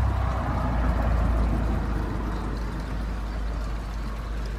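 A power tool's blade cutting slots into the plastic sewer-pipe Y fitting of an RV: a steady motor hum with a rasping cutting noise, loudest in the first second and a half.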